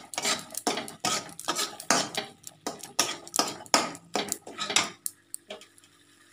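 Wooden spatula stirring thick spice masala in a kadai, with quick scraping and knocking strokes against the pan, about three a second, stopping about five seconds in.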